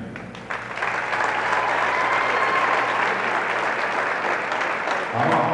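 Crowd applauding in a gymnasium, starting about half a second in and running until a man's voice comes back near the end.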